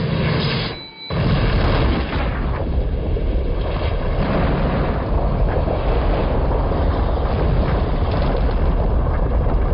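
Movie explosion effects: a sudden drop to near silence about a second in, then a massive blast as a fireball bursts out of an elevator shaft. The blast is followed by a long, continuous rolling fireball rumble, heavy in the low end.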